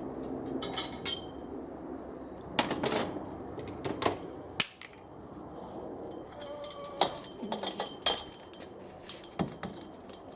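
Metal clinks and knocks of a spanner and bolts working on a steel antenna-mast bracket, irregular, some ringing briefly, with the sharpest knock about halfway through.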